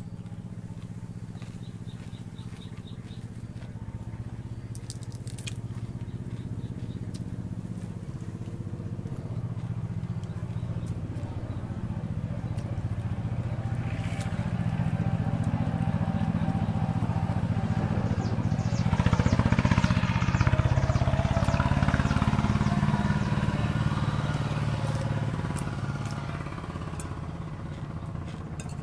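A motor vehicle's engine passing by: a low hum that slowly grows louder, is loudest about two-thirds of the way through, then fades. Light clicks and crunches of eating with a spoon sound over it.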